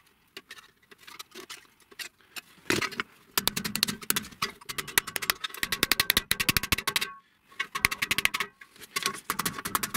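A wooden mallet tapping quickly on thin galvanized sheet metal, folding and flattening the bent edges of a small sheet-metal tray. At first there are a few scattered knocks from handling the sheet. About three seconds in, the tapping settles into a fast, even run of roughly eight light blows a second, with two short pauses.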